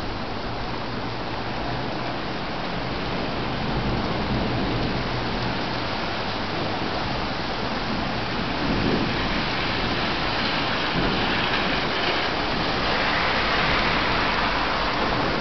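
Heavy, wind-driven rain pouring down on a street and pavement: a steady hiss with a low rumble underneath. It grows a little louder and brighter a few seconds before the end.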